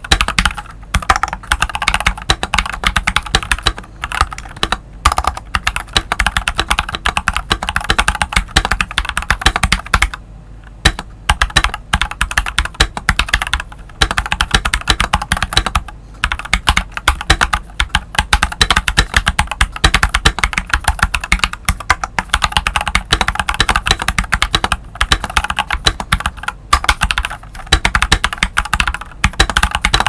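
Continuous typing on a stock FL Esports CMMK MK870 mechanical keyboard with Jwick Black v2 linear switches and ABS doubleshot MSA-profile keycaps: a steady run of key clacks, with a brief pause about ten seconds in.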